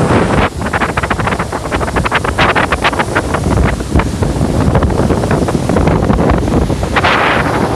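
Strong wind buffeting the microphone, with lake waves splashing in quick irregular slaps.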